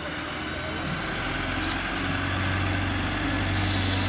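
Large vehicle's diesel engine running steadily, growing louder about two seconds in as it draws nearer.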